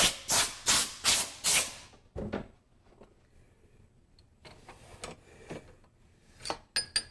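Short, rapid blasts of compressed air from a hand blow gun, about four in the first two seconds, then a dull thump and light metallic clicks and rubbing as parts are handled in the mill vise.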